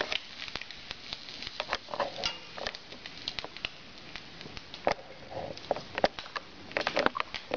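Scattered light clicks and taps at irregular intervals, objects being handled, over a faint steady hiss; the clicks bunch together near the end.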